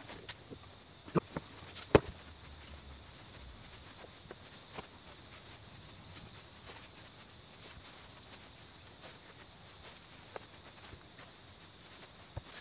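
Light clicks and taps of small metal parts and tools being handled as the solenoid valves of a truck gearbox's pneumatic air shifter are refitted. A few sharper clicks come in the first two seconds, then fainter scattered taps.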